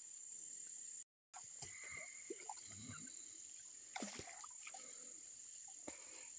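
Night insects trilling steadily, a high-pitched chorus, with scattered small clicks and rustles as a hooked softshell turtle is hauled up the bank on fishing line.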